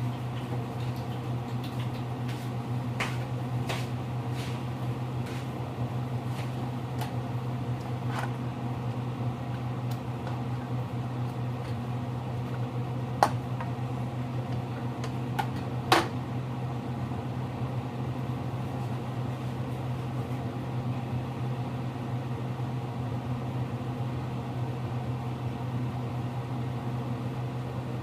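Steady low hum of a running kitchen appliance, with light ticks in the first several seconds and two sharp clicks about thirteen and sixteen seconds in.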